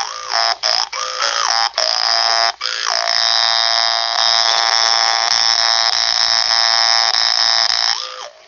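Hmong brass jaw harp (ncas) being played: a buzzing reed tone whose overtones shift up and down in short phrases. About three seconds in it settles into one long held drone, which stops shortly before the end.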